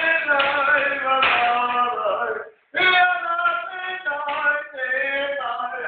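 Singing voice with long held notes, cutting off briefly about two and a half seconds in before starting again.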